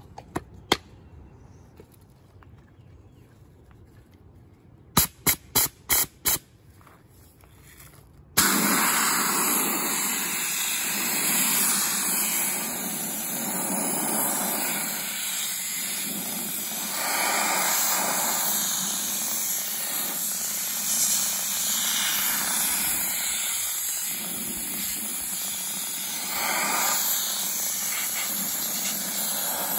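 A few sharp clicks: one about a second in and a quick run of about six near the middle. Then a Harbor Freight Central Pneumatic soda blaster gun cuts in suddenly, blowing compressed air and baking soda onto a painted steel wheel. It makes a loud steady hiss that swells and dips a little as the nozzle moves across the wheel.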